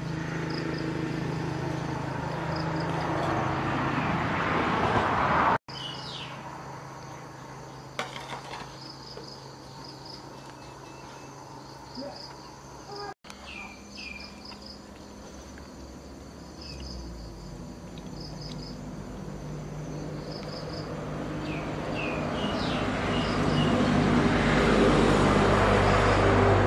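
Outdoor ambience of insects chirping in short repeated high pulses, over a low steady motor hum that swells and grows loudest near the end.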